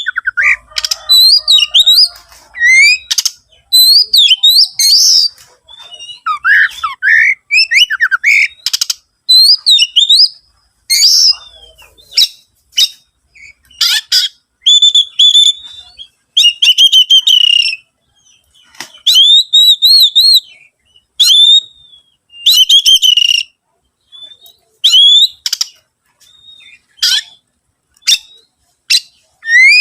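Oriental magpie-robin (kacer) singing vigorously: a rapid, varied string of whistled notes, chirps and quick up-and-down glides in short bursts with brief pauses between them. Around the middle, some phrases turn into longer warbled notes.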